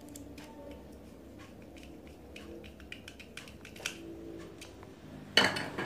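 Small screwdriver working a terminal screw on a plastic timer socket: faint scattered clicks and scrapes, then a much louder clatter of hard objects near the end.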